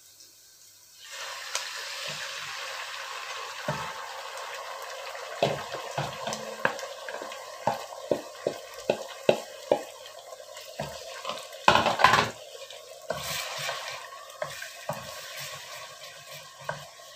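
Raw eggs sizzling as they fry in a hot stainless steel pot over softened onions; the sizzle starts about a second in. Repeated knocks of a wooden spatula and utensils against the pot run over it, with the wooden spatula stirring near the end.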